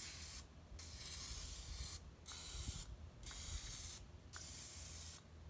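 Aerosol cooking-oil spray hissing in about five short sprays, each up to a second long with brief pauses between, as it coats the cups of a muffin tin one after another.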